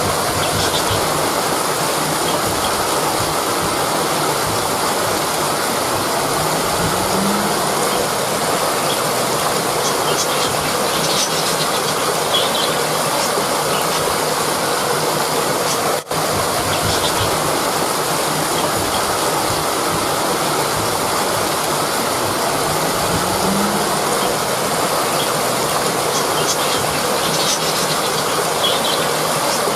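Rushing river water: a loud, steady rush that drops out for an instant about halfway through.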